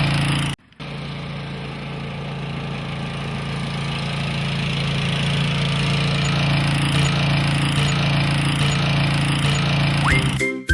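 An engine running with a steady hum. It cuts out for a moment about half a second in, then runs on and grows slightly louder. A children's tune with chimes starts right at the end.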